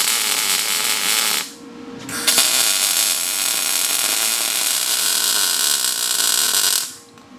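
Electric arc welding a bracket to an axle truss: a short weld run, a pause of under a second, then a longer steady run of about five seconds that stops suddenly near the end.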